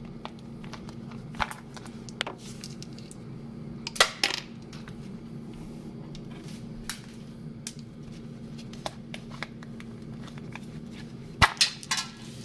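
Sharp clicks and knocks of hard kitchen items being handled, scattered and uneven, with a cluster about four seconds in and another near the end, over a steady low hum.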